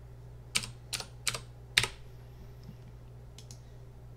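Computer keyboard keys being typed: about four sharp keystrokes in the first two seconds, the last the loudest, then a couple of faint clicks later, over a low steady hum.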